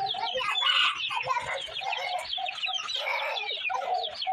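Several chickens clucking and calling over one another in a dense, continuous chatter.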